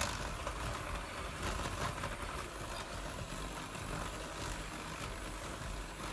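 Electric hand mixer running at a steady speed, its wire beaters creaming butter and sugar in a glass bowl.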